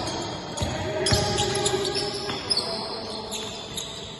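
Basketball bouncing on an indoor court during play: several separate thumps of the ball.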